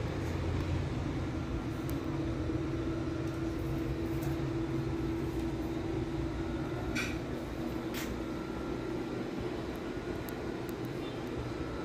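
Steady low rumble with a droning hum, and two short clicks about seven and eight seconds in.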